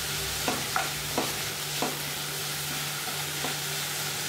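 Boiled drumstick (moringa) leaves sizzling in a nonstick kadai while a wooden spatula stirs them, with a steady hiss and a few irregular clicks of the spatula against the pan. The sizzle is the last moisture on the leaves cooking off before they fry.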